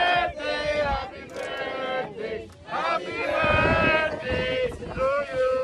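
A group of people singing and chanting together, voices holding notes in unison.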